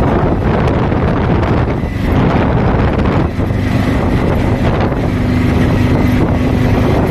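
Loud wind buffeting on the microphone, with a steady low hum that comes in about three and a half seconds in.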